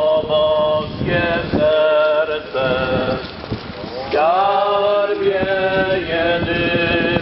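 Male singing of a slow hymn in long held notes, with short breaks between phrases.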